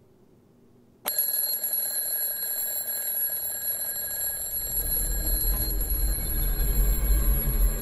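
Horror-film sound effect: a piercing high-pitched ringing tone cuts in suddenly about a second in and holds steady, and a deep low rumble swells in underneath from about four seconds.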